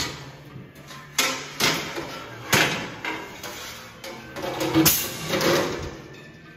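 Stainless steel table and carriage parts of a Biro 3334 meat band saw being slid, lifted and set down: a string of metallic clanks and scrapes with short ringing, the loudest about a second, two and a half and nearly five seconds in.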